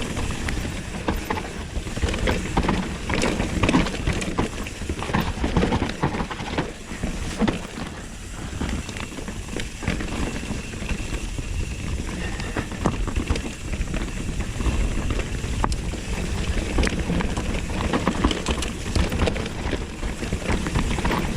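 Mountain bike ridden fast down a rough dirt trail: tyres rolling over dirt and roots and the bike rattling and clattering over bumps in quick, uneven knocks, with wind rumbling on the microphone.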